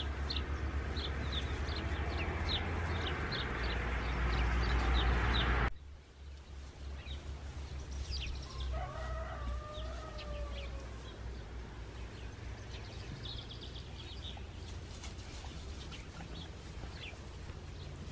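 A rooster crows once, one drawn-out call lasting about two seconds that rises, holds and falls away, roughly nine seconds in, with small birds chirping throughout. Before an abrupt cut about six seconds in, a loud steady noise fills the background.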